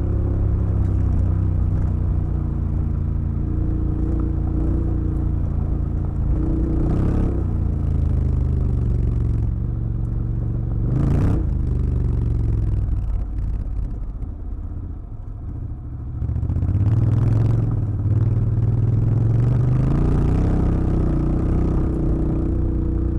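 Honda X-ADV 750's parallel-twin engine running while riding a gravel track, with gravel and chassis clatter underneath. Two sharp knocks come a few seconds apart. About two-thirds of the way through the engine eases off and quietens, then picks up again with rising pitch.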